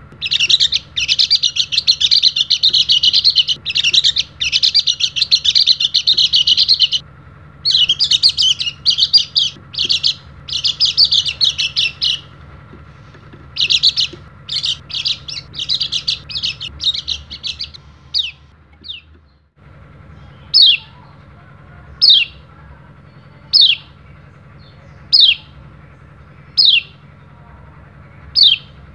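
A pleci dakun (white-eye) singing a long, fast, high twittering song in several unbroken runs of a few seconds each. Later it gives single sharp falling 'ciak' calls, about one every second and a half.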